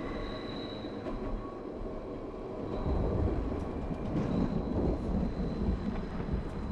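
Steady low rumble of a moving rail vehicle, swelling about three seconds in, with a faint thin high whine.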